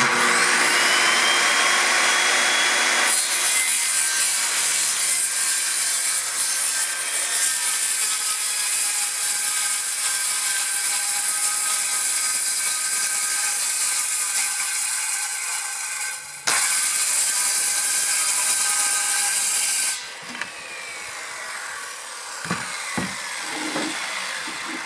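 DeWalt corded circular saw starting up with a rising whine and ripping a long cut through a sheet of OSB, running steadily under load for about twenty seconds with a brief dip near the end. The saw then switches off and winds down with a falling whine, followed by a few knocks as the cut board is handled.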